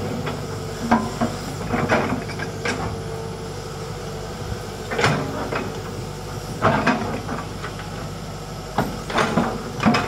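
Hitachi hydraulic excavator running steadily while its bucket digs and drags soil. Several clunks and scrapes come about a second in, around two seconds, around five, around seven, and in a cluster near the end.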